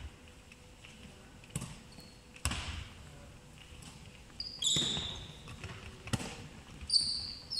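A handball thudding in a passing drill, caught and bounced about five times, each hit ringing in the large hall. Sneakers squeak sharply on the hall floor about two-thirds of the way in and again near the end.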